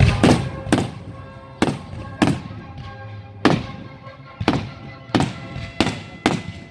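Fireworks bursting: about ten sharp bangs at uneven intervals, each trailing off in an echoing tail, with music playing underneath.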